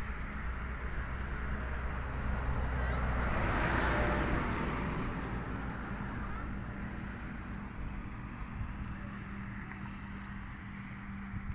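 A motor vehicle passing by, its noise swelling to its loudest about four seconds in and then fading away over a steady low hum.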